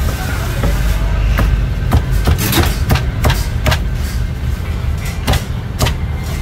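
Heavy Chinese cleaver chopping char siu (barbecued pork) into slices on a thick wooden chopping block: about a dozen sharp chops, coming fastest between two and four seconds in, over a steady low rumble.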